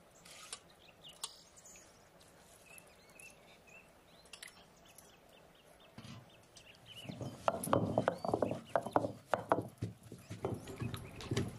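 Soaked rice being ground by hand on a grinding stone: irregular, rough rhythmic scraping and knocking of stone on stone, starting about six to seven seconds in.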